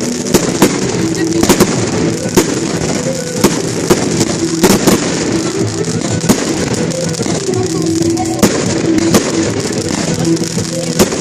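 Fireworks going off in a dozen or so sharp bangs at irregular intervals, over music with held notes.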